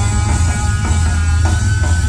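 Live rock band playing loud: an electric guitar holds a long sustained note that slides slightly upward, over heavy bass and drums.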